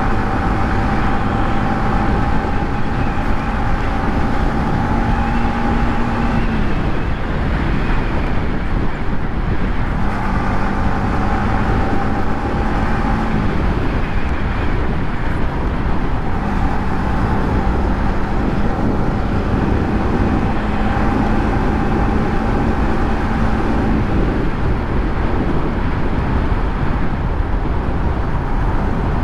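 Yamaha MT-15's single-cylinder engine through its stock exhaust, running at steady revs on the move, under a constant rush of wind and road noise. The steady engine note fades into the wind noise about six seconds in, comes back, fades again, returns, and fades once more near the end.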